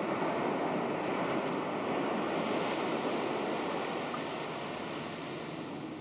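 Ocean surf washing onto a sandy beach: a steady rush that swells a little midway and eases off near the end.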